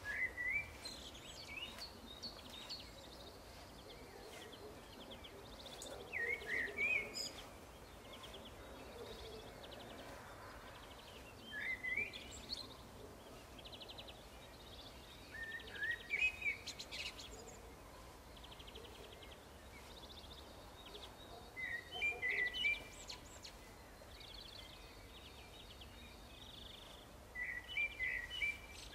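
A songbird repeating a short, chirpy phrase about six times, a few seconds apart, over faint steady background noise.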